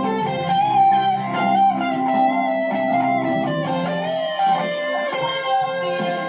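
Electric guitar played through a Deviser TG-30 practice amplifier: a lead line of held notes with several string bends.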